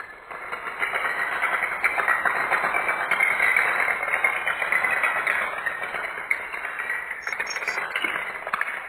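A long chain of toy dominoes toppling one after another onto a tile floor, making a dense, rapid clatter of clicks that keeps up steadily.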